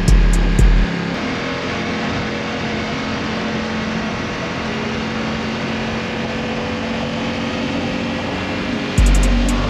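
Ducati XDiavel's V-twin engine running steadily at cruising speed through its stock exhaust, mixed with wind noise. A beat with heavy bass and hi-hats plays for about the first second and comes back near the end.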